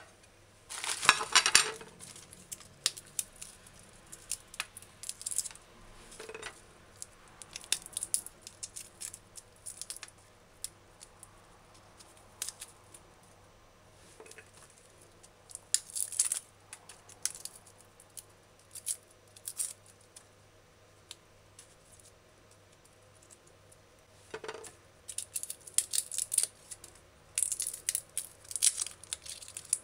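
Garlic cloves being peeled by hand: scattered small crackles of dry papery skin and light taps as cloves are set down on a stone countertop and a china plate. The sounds come in irregular clusters, busiest about a second in and again near the end.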